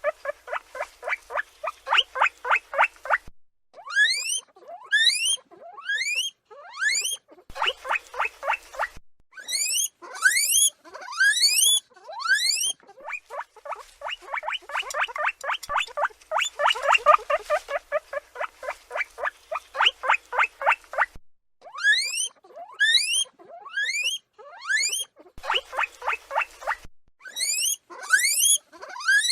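Guinea pig calling: runs of rapid short squeaks, several a second, alternating with series of loud, steeply rising whistling wheeks.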